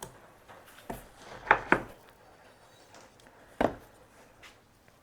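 Kayak rudder-system parts knocking and clicking as they are handled and fitted: two sharp knocks in quick succession about a second and a half in, and a third about two seconds later, with lighter taps between.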